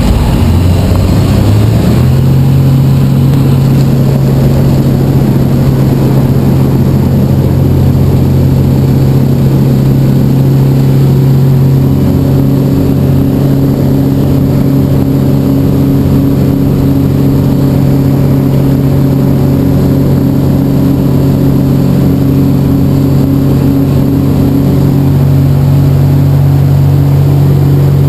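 Sky Ranger light airplane's engine and propeller at full takeoff power, heard from inside the open cockpit. The pitch climbs over the first couple of seconds as the throttle comes in, then holds a steady, loud drone through the takeoff roll and climb-out.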